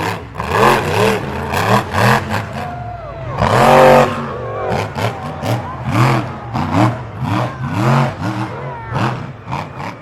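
Grave Digger monster truck's engine revving over and over in short bursts, its pitch swinging up and down with each blip of the throttle.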